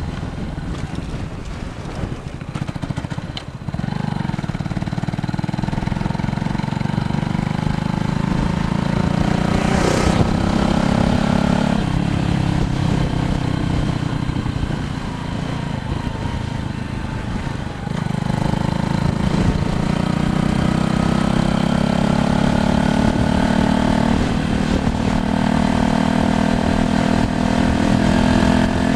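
A motor vehicle's engine running close by, climbing slowly in pitch and dropping back at each gear change, twice over, with one sharp click partway through. Under it runs a steady low rumble of wind and road noise.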